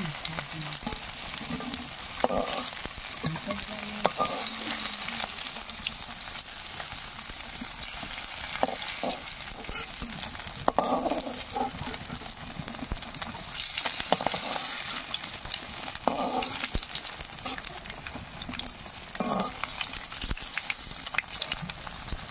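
Fish pieces sizzling as they fry in hot oil in a large metal wok, with a metal spatula scraping against the pan every few seconds as the pieces are turned and lifted out.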